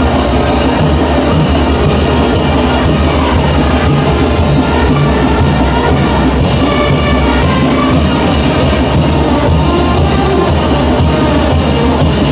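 Wind band playing chinelo dance music, with a steady drum beat.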